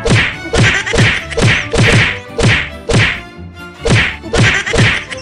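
Film fight sound effects of a beating: a rapid string of punch and slap whacks, about two or three a second, each with a quickly dropping thud, and a short pause about three seconds in.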